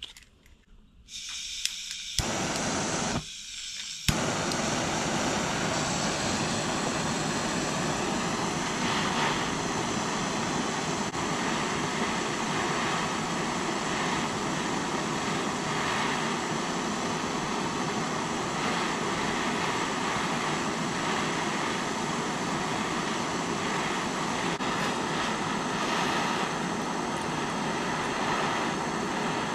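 Handheld butane blowtorch lighting with two short bursts, then catching about four seconds in and burning with a steady rushing hiss, the flame heating a ring terminal held in vice grips to melt solder into it.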